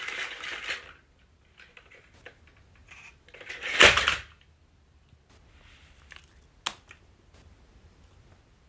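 A plastic toy dinosaur topples over onto a wooden floor with a short loud clatter about four seconds in, among light scattered clicks and taps, one of them sharp later on.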